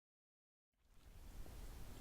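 Silence, then the recording fades in about three-quarters of a second in with a faint, even hiss and low rumble from a close microphone, before any chewing is heard.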